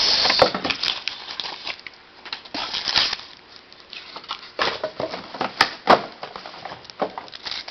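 Cardboard trading-card blaster box being torn open and handled: irregular rustling, scraping and sharp clicks of the card stock, with a quieter stretch about halfway through.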